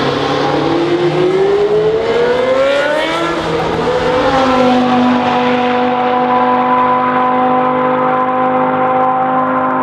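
Historic racing car engine under hard acceleration: the revs climb for about three seconds, drop at a gear change, then hold a steady high note.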